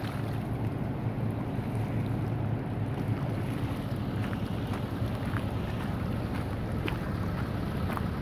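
Steady rush of a flooded river's fast, muddy current, mixed with wind rumbling on the microphone. A few faint light ticks come in the second half.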